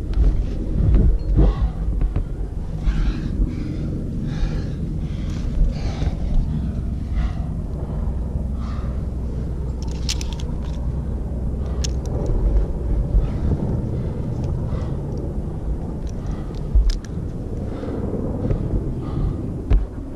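A climber breathing hard and fast in thin high-altitude air under a heavy pack, a little over one breath a second, over low wind rumble on the microphone. A few sharp metallic clicks of carabiners and a rope-soloing belay device come around the middle and again later.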